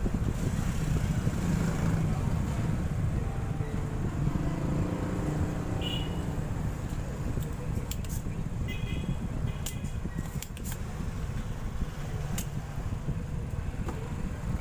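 Steady low background rumble, with a few light clicks and a couple of short high chirps in the middle.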